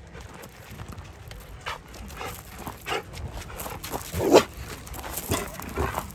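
A dog giving a series of short barks, faint at first and louder from about four seconds in.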